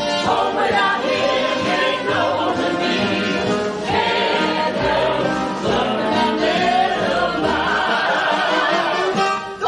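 A musical-theatre cast singing together as an ensemble over musical accompaniment. The music cuts off just before the end.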